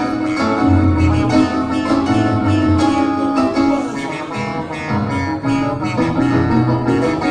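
Instrumental music with plucked strings over a moving bass line.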